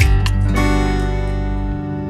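Background music: a plucked guitar chord rings out and sustains.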